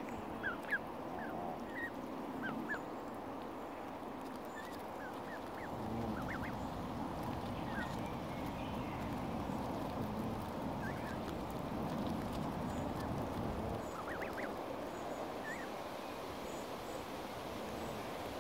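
Canada goose goslings peeping: short, high, rising calls scattered throughout, over a steady low rushing noise that grows louder from about six to fourteen seconds in.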